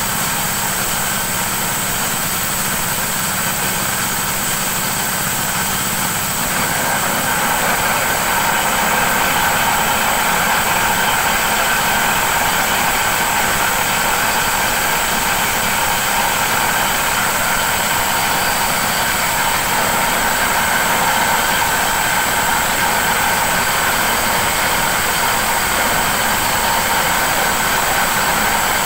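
Forage chopper running steadily while chopping green fodder, a continuous machine hum with steady whining tones over it. It grows a little louder about six seconds in.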